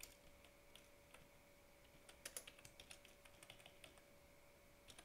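Faint computer keyboard typing: scattered key clicks, with quicker runs of keystrokes a little after two seconds in and again past three seconds, over a faint steady hum.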